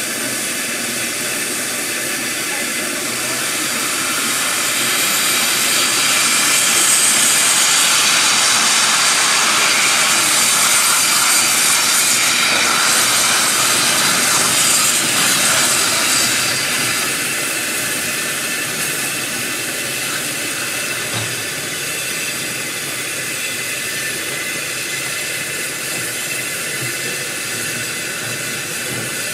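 Rhaetian Railway steam locomotive passing with a steady hiss of steam. The hiss swells to its loudest in the middle and fades again.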